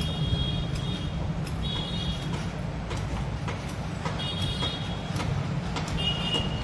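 Steady low background rumble with scattered light clicks and a few short high-pitched squeaks, as of small fan parts such as the run capacitor being handled.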